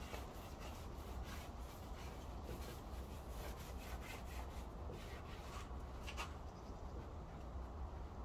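Paintbrush rubbing wood glaze onto an OSB panel in repeated strokes, over a low steady rumble.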